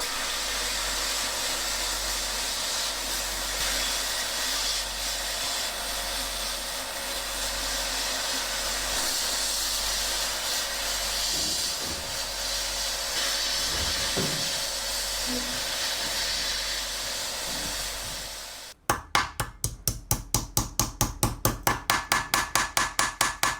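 Workshop tool noise: a steady hiss that cuts off suddenly about 19 seconds in, followed by quick, even strikes, about four or five a second.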